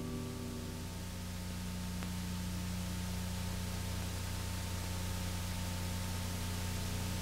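Steady hiss over a low hum and a faint high tone: the background noise of an old soundtrack. The hiss grows a little louder after about a second.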